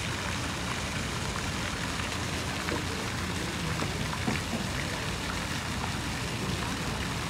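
Steady rushing, rain-like hiss of water with a low hum beneath it. The Taiga Orca electric watercraft moving on the water gives off no distinct motor sound over it: it is very quiet.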